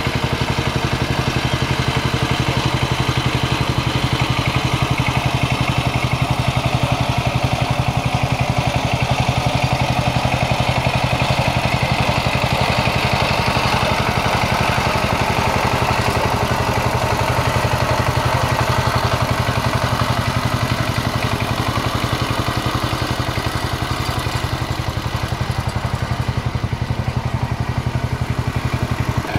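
Kamco 12 hp power tiller's single-cylinder diesel engine running steadily with a rapid, even chug as it pulls its rotary tiller through wet mud.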